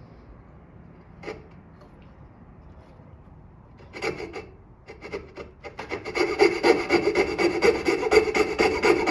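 Wood being abraded by hand with rapid back-and-forth strokes. A few strokes come about four seconds in, then fast, steady strokes run from about six seconds on. A single light knock comes about a second in.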